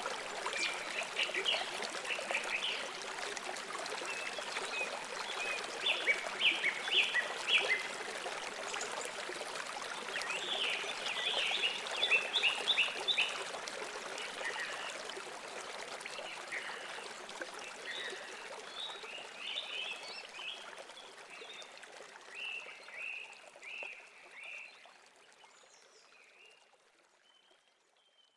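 River water running steadily, with birds calling in short runs of quick, repeated notes every few seconds. The whole bed fades out gradually over the second half until it stops.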